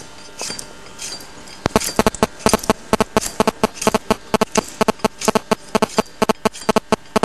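A cow's hoof being trimmed with a hand tool: a rapid run of sharp, ringing strikes, about three to four a second, starting a little under two seconds in.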